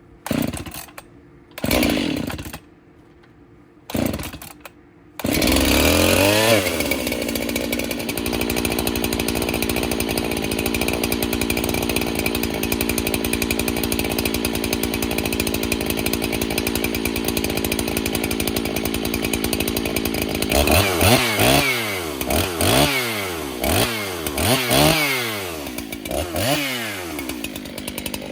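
Husqvarna 371 two-stroke chainsaw, freshly rebuilt as a base gasket delete build with a stock muffler, pulled over a few times and firing up about five seconds in. It revs up and holds a steady high speed, then from about twenty seconds the throttle is worked up and down repeatedly as the engine is run in.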